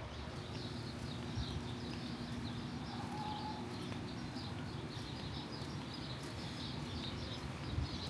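Many small birds chirping and twittering without a break, over a low background rumble and a faint steady hum.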